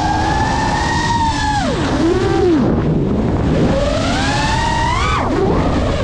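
FPV racing-drone motors and propellers whining over a rush of air, the pitch shifting with the throttle: steady at first, dropping about two seconds in, climbing for a couple of seconds, then falling sharply and rising again near the end.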